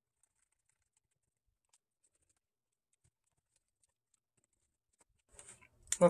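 Near silence with faint scattered ticks of hands handling a laptop's bottom cover; near the end a short run of louder clicks and rustling as the cover is pressed into place.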